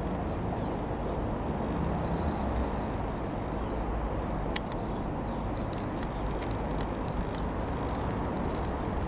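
Steady low drone of a distant Piper PA-28-180 Cherokee's four-cylinder piston engine as the plane flies past overhead, with small birds chirping several times.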